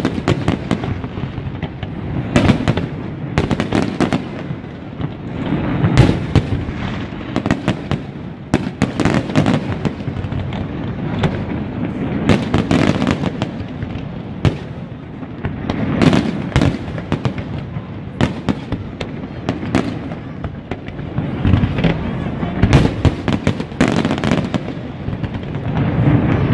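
Fireworks display: a continuous barrage of aerial shell bursts, bangs and crackling, thickening into louder clusters about every ten seconds.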